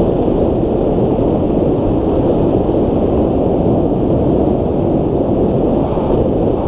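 Airflow over a hang glider in flight buffeting the microphone: a loud, steady, deep wind rumble.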